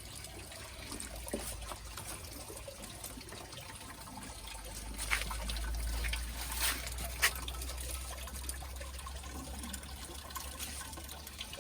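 Water trickling and splashing in a hydroponic setup, with a few sharp clicks near the middle, over a low steady rumble.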